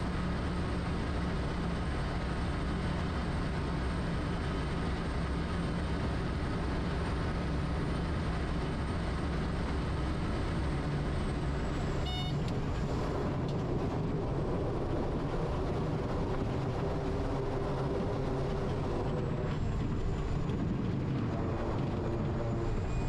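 Quest Kodiak's Pratt & Whitney PT6A turboprop and propeller running steadily with wind rush as the plane touches down and rolls out on a muddy grass strip. The high turbine whine drops in pitch about halfway through, as power comes back, and rises again near the end. A brief beep sounds about halfway through.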